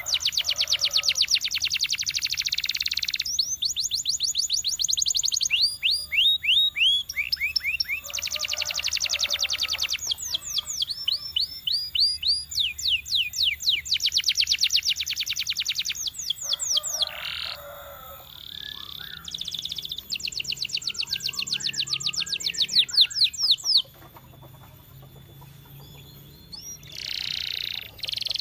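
Domestic canary singing a long song of fast trills: runs of rapidly repeated high notes, some sweeping down in pitch, broken by short pauses, with a quieter stretch near the end.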